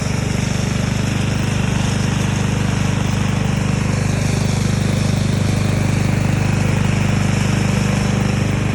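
Remote-control lawn mower's engine running steadily at an even speed.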